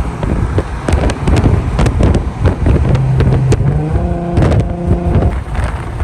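Infiniti Q50's V6 running through test pipes while driving, a loud exhaust drone that holds steady for a second or two near the middle, with crackles throughout.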